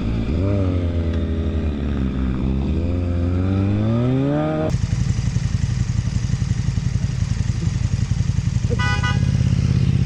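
Motorcycle engine revving up, its pitch climbing over about four seconds, then cut off abruptly and replaced by a motorcycle engine idling with a steady low throb. Near the end a car horn gives one short honk.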